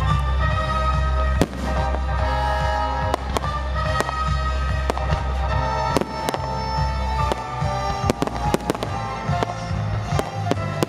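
Aerial fireworks bursting, with many sharp bangs and crackles at irregular spacing that come thicker near the end, over music with held notes and a heavy bass.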